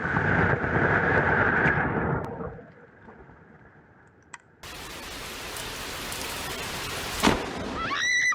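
A close lightning strike: a sudden sharp thunder crack, followed by a loud noisy rumble that dies away within a couple of seconds. After a cut comes steady rain with a second sharp crack about a second before the end.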